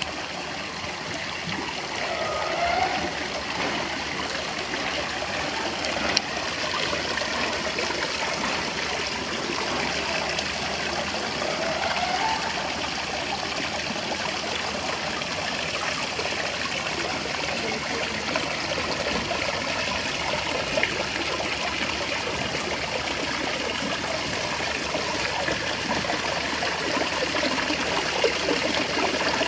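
Water pouring and trickling over the stones of a man-made garden rock waterfall, a steady splashing rush.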